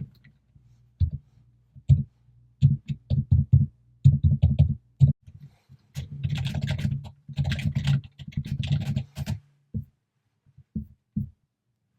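Typing on a computer keyboard in irregular bursts of keystrokes, densest in the middle, trailing off into a few single clicks near the end.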